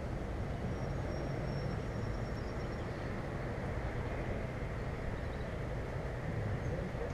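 Steady rushing of a river's current, with a low rumble.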